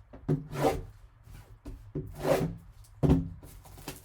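Cardboard and plastic packaging of a trading-card box rubbing and scraping as the box is opened, in three separate strokes about a second apart.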